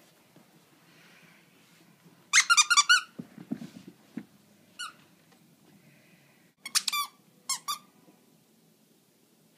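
A dog's plush squeaker toy squeaking as a West Highland White Terrier bites it. The squeaks come in short bursts: a quick run of several, a single one, then a few more. There are some dull low thumps of the toy and dog moving on the rug.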